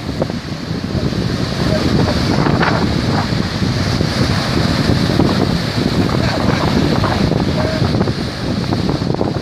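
Wind buffeting the microphone over a steady rush of surf or waves.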